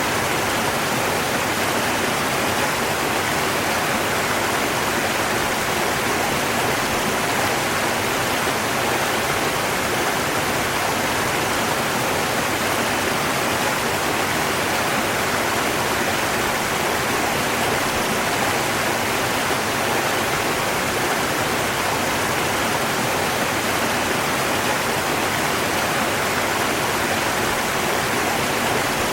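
Steady rush of flowing river water, an even, unbroken hiss with no change in level.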